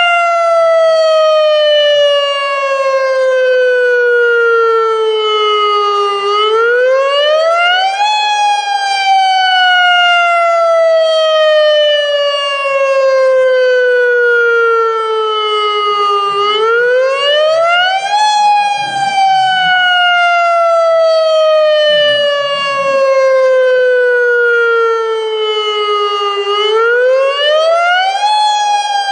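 AHAB tsunami warning siren, an electronic loudspeaker siren, sounding its wail, the tone used in real emergencies. The pitch climbs quickly for about two seconds, then slides slowly down for about eight, repeating about every ten seconds.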